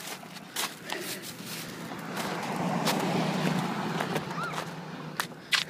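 A car going by on the street, its noise swelling over a couple of seconds and then fading. Scattered knocks and crunches of footsteps in snow run over it.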